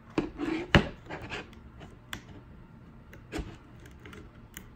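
Hard 3D-printed plastic parts clicking, knocking and rubbing as a crank arm is worked onto an arbor press shaft by hand. A few separate clicks, with the sharpest one just under a second in and a duller knock about three and a half seconds in.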